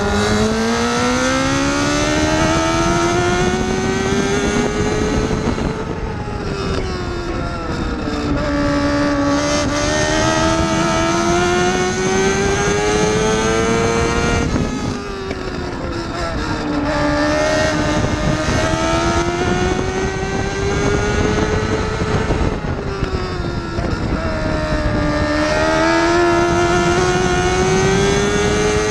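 TQ midget race car's engine heard on board at racing speed. Its pitch climbs for several seconds and then drops sharply as it laps the oval, repeating about every eight seconds.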